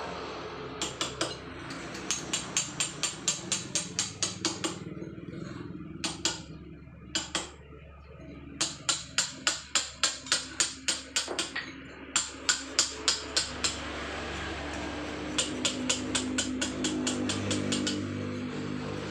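Hammer striking a chisel into soft paras jogja limestone during manual carving. It comes as runs of sharp taps about three to four a second, broken by short pauses.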